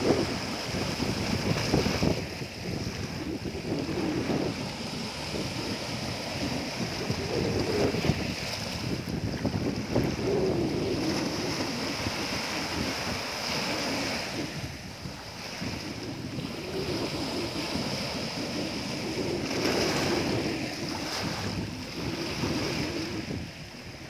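Small sea waves breaking and washing over a shallow stony shore, surging and easing every few seconds, with wind buffeting the microphone.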